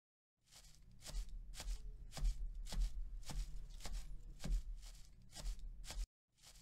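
A run of short, soft taps, roughly two a second, over a low hum.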